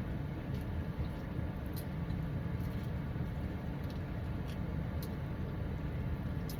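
Steady low rumble with a few faint, short clicks scattered through it, six or so in all.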